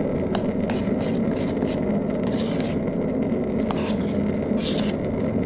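A metal utensil scraping and clicking against a camping pot as rice is stirred, a short scrape every half second or so, over a steady low rumble.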